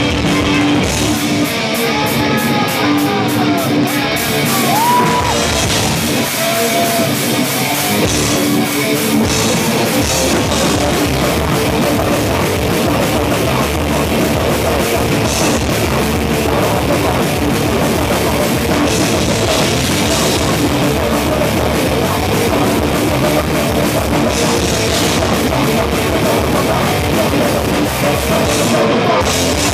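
Live crossover thrash band playing loud, distorted rock: electric guitar over a drum kit. The low end of bass and kick drum fills in fully about ten seconds in and the full band runs dense to the end.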